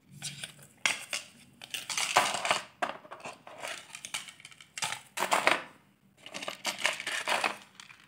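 Cardboard earring display cards being handled and shuffled, rubbing and scraping in about five bursts, with small clinks from oxidised silver jhumka earrings.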